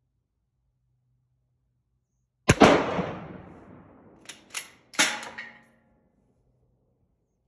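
A single shot from a 1940 K98 Mauser bolt-action rifle firing a handloaded 8mm Mauser round, echoing and dying away for over a second under the covered range's wooden roof. About two seconds later the bolt is worked: two quick metallic clicks, then a louder clack with a short ring.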